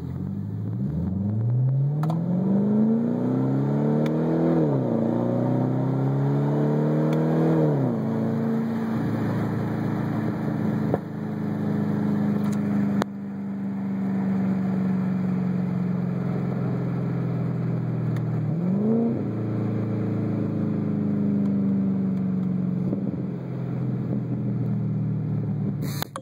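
A 2011 Cadillac CTS-V coupe's supercharged 6.2-litre LSA V8, with straight pipes and Magnaflow silencer mid-pipes, heard from inside the cabin as it accelerates from a crawl. The revs climb and drop at about four and a half and eight seconds as it changes up, then the engine holds a steady cruise. There is a brief sharp rise in revs about nineteen seconds in, and the engine slowly eases off near the end.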